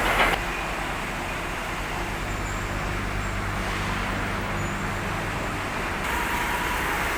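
Heavy diesel engine running at a steady speed, its low hum fading out about six seconds in.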